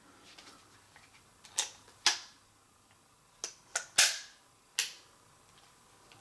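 Smith & Wesson 629 Classic .44 Magnum revolver's action being worked by hand, trigger pulled and released: about six sharp metallic clicks of the hammer and cylinder mechanism, spread unevenly over a few seconds, the loudest near the middle.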